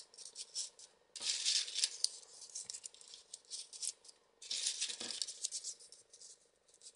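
Folded paper modules of a 3D origami model rustling and scraping as they are pushed into place by hand. The rustling comes in irregular bursts, the longest about a second in and again around four and a half seconds in, with small paper ticks between them.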